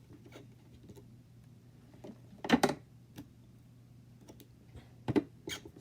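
Small crafting items being handled and set down on a work surface: a few scattered clicks and knocks, the loudest a quick pair of clacks about two and a half seconds in and another near the end, over a faint low hum.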